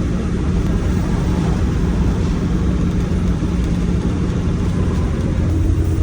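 Steady low drone of a vehicle's engine and road rumble, with a constant hum under it.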